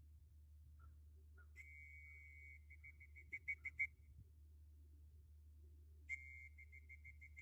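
A high, whistle-like tone held for about a second, then broken into a quick run of short pips on the same pitch that get louder. The same pattern starts again near the end. A faint steady low hum runs underneath.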